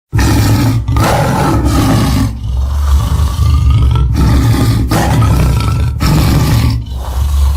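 Tyrannosaurus rex roar sound effect: a string of loud, deep roars run together with short breaks between them, starting suddenly after silence.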